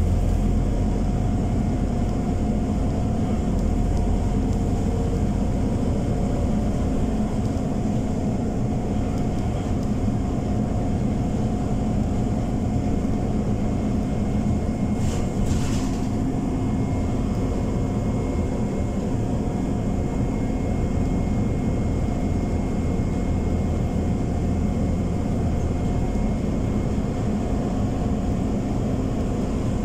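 Scania OmniCity 12 m diesel city bus heard from inside the passenger cabin: the engine runs steadily with its cooling fan engaged, a steady whine over the low drone. A brief hiss sounds about halfway through.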